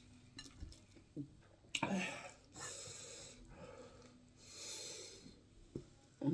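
A person eating: soft breaths through the nose while chewing, with a few small clicks of the mouth or cutlery.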